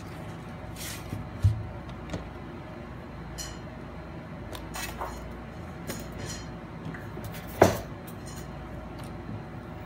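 Clicks and knocks of a MacBook Pro's aluminium bottom case being prised free with a plastic pick and suction cup and lifted off, with a low thump about one and a half seconds in, a run of light clicks in the middle, and a sharper knock near the end.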